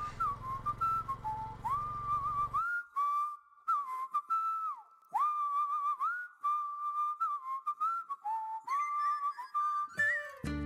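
A person whistling a melody, each note scooping up into its pitch. A low background hum under the whistling cuts off suddenly about two and a half seconds in, and instrumental music comes in near the end.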